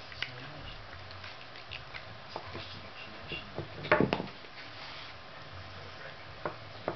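Wooden pegs knocking and clicking against a wooden dog puzzle board as a dog noses and paws at it, with a quick cluster of knocks about four seconds in.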